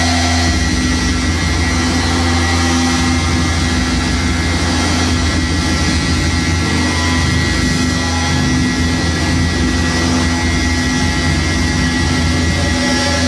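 Live electronic noise music: a dense, unbroken wall of harsh noise over a deep steady drone, with a held hum and a thin high tone running through it.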